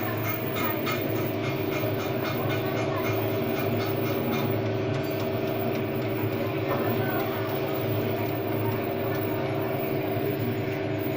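A CNC lathe runs steadily in a machine shop, giving a continuous mechanical hum with several steady whining tones. Quick, evenly spaced ticking fades out after about four seconds.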